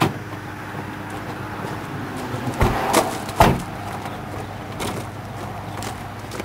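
Van doors being shut: a few sharp knocks about two and a half to three and a half seconds in, the last one the loudest, and a softer one near five seconds.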